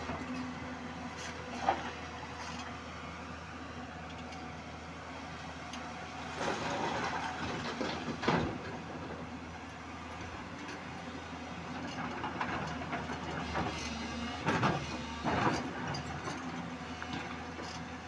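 JCB tracked hydraulic excavator's diesel engine running steadily while it works, with two louder stretches of rock and earth grating and tumbling as its bucket handles the load, about six to eight seconds in and again around fifteen seconds in. A single sharp knock about two seconds in.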